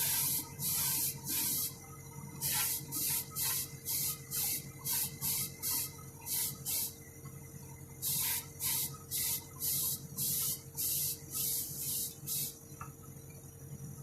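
Paint spraying from an airbrush in short on-off bursts of hiss, about one to two a second, with the air compressor humming steadily underneath; the owner reckons the compressor is about worn out.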